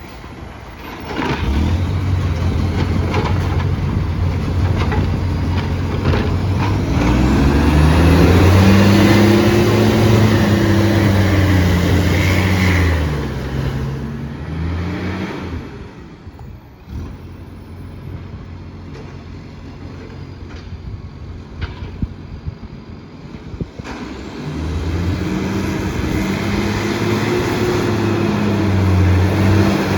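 Garbage truck's diesel engine revving up and back down twice, once through the middle of the first half and again near the end, idling lower in between. It sounds loud and rough from a massive exhaust leak, with a few sharp clanks.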